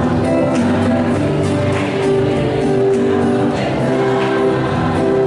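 A group of voices singing a song together, holding long notes.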